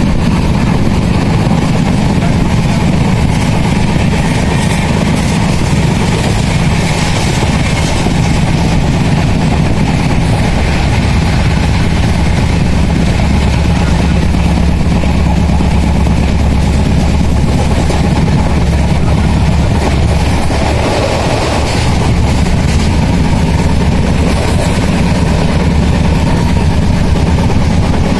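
Passenger train running at full speed: a loud, steady rumble of the carriage and wheels on the track, without a break.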